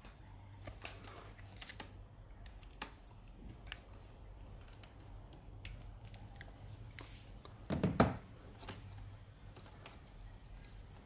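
Hands handling a USB cable and a plastic USB socket module: scattered small plastic clicks and rubbing, with one louder knock about eight seconds in.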